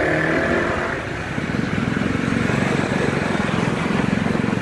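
Motorbike engine running steadily under way, heard from the pillion seat, with a fast, even engine pulse and road noise.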